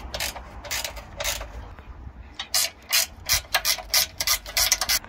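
Ratcheting ring spanner clicking as it undoes a bolt on a car's crash bar mounting: a run of sharp ratchet clicks, sparse at first and coming faster in the second half.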